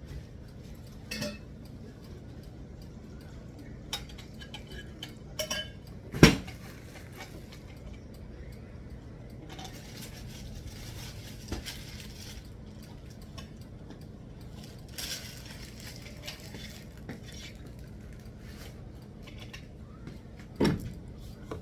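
Metal parts clinking and knocking as they are handled and fitted together, with a sharp knock about six seconds in and another near the end, and stretches of rustling in between.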